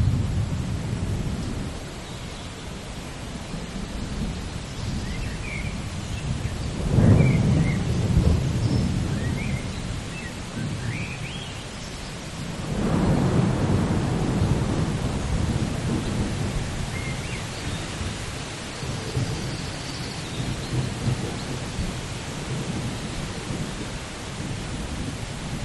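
Steady rain with rolling thunder: one roll swells up about seven seconds in and a longer one about thirteen seconds in, each dying away slowly.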